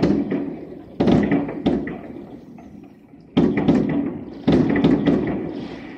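Aerial firework shells bursting: four heavy booms, at the start, about a second in, and twice more from about three and a half seconds, each trailing off in a long echo off the surrounding tower blocks, with faint crackling between.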